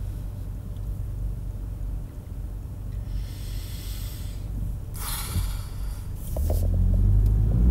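A woman breathing in and letting out a heavy sigh inside a car, over the car's steady low hum, which swells louder near the end.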